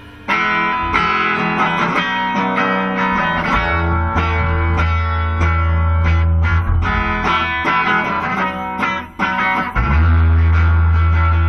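Guitar intro of a rock song: electric guitar picking repeated notes and chords over low bass notes, with a brief break about nine seconds in.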